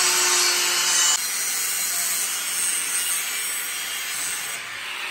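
Angle grinder working steel: a steady, loud grinding hiss over a faint motor hum, dropping somewhat in level about a second in as the pressure on the work eases.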